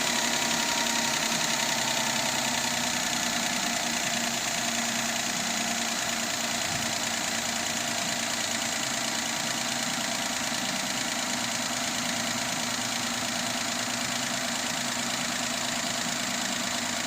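Daihatsu Esse's 660 cc three-cylinder engine idling steadily, running on newly fitted ignition coils and spark plugs that replaced the ones blamed for the idle sagging almost to a stall.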